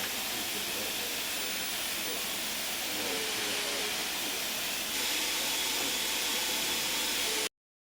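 Steady, even hissing rush of noise with faint voices under it. It gets a little louder about five seconds in, then cuts off abruptly near the end.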